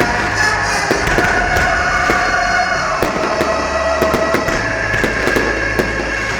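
A run of fireworks bangs and crackles going off in quick succession, over music playing throughout.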